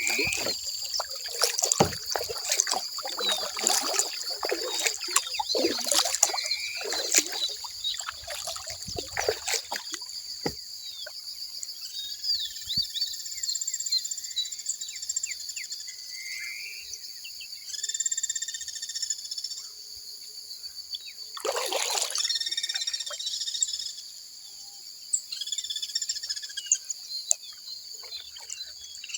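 Kayak paddle splashing and dripping in the water for about the first ten seconds, then the paddling stops and birds call in short repeated phrases over a steady high trilling chorus, with one more splash a little past the middle.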